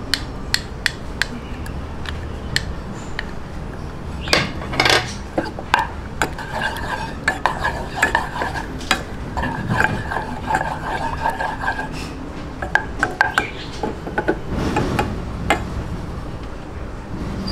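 Wooden spoon stirring and scraping in a small metal saucepan as butter melts in oil, with many light clicks of the spoon against the pan.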